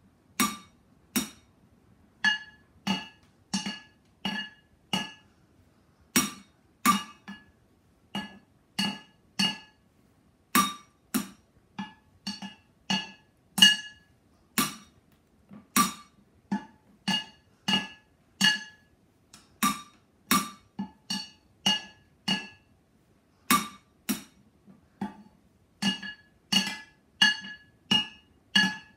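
Wooden drumsticks beating on two upturned cooking pots. The strikes are sharp and ring briefly, about two a second in a loose, uneven beat, and the two pots ring at different pitches.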